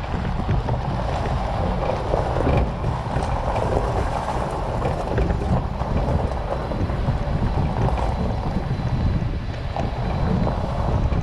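Wind buffeting the microphone of a camera mounted on a trailered fishing boat, over a steady low rumble as the trailer is towed across a gravel yard.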